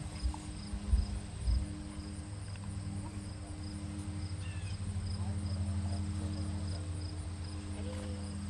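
An insect chirping faintly and evenly, about two to three chirps a second, over a steady low hum, with a few dull low thumps in the first second and a half.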